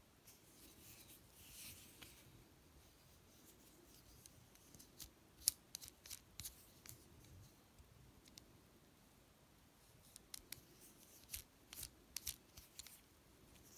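Small sharp clicks and scrapes from a turned wooden slimline pen's metal twist mechanism as its halves are turned to retract and extend the refill. The clicks come in two clusters, about five seconds in and again from about ten seconds, with a soft rustle of handling near the start.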